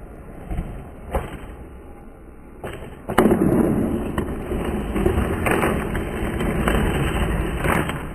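Skateboard: a few sharp clacks of the board in the first seconds, then from about three seconds in the wheels rolling on rough asphalt, a steady grinding roll with occasional clicks.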